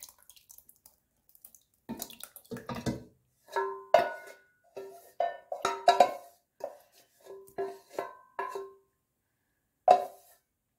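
Background music on a plucked string instrument: a run of short, quickly decaying notes.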